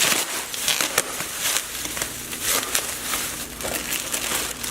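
Meal-kit packaging crinkling and rustling as it is handled, in irregular crackly bursts.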